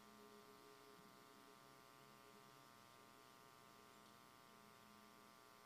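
Near silence: a steady electrical hum from the sound system.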